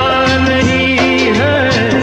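Background Bollywood-style film song, with a singing voice over a steady beat and bass.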